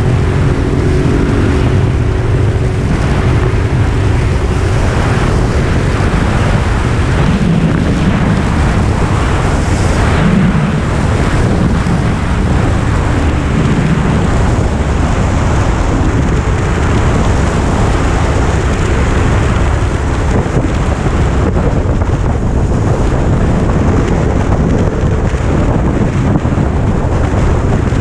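Motorcycle riding at speed, with steady wind noise on the microphone over the engine.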